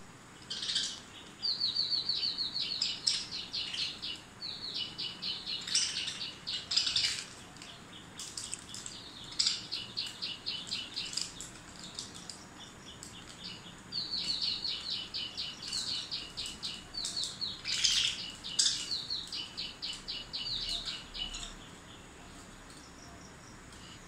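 Pet budgerigars chirping in rapid runs of quick repeated high notes, with sharper single calls mixed in. The chirping comes in two long bouts with a sparser stretch between them.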